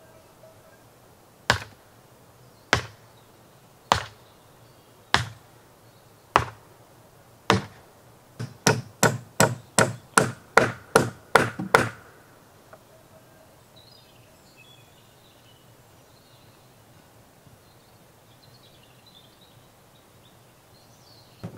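Claw hammer striking the wooden deck framing: six single blows about a second apart, then a fast run of about ten blows. Afterwards only faint chirping from insects or birds.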